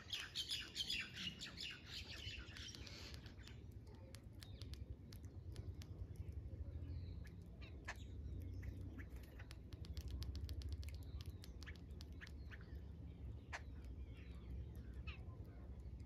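A flock of jungle babblers chattering harshly for about the first three seconds, then scattered short calls and sharp clicks as they feed, over a low steady background rumble.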